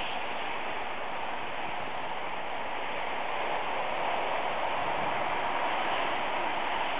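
Strong hurricane wind rushing steadily as a dense hiss, swelling slightly about four seconds in.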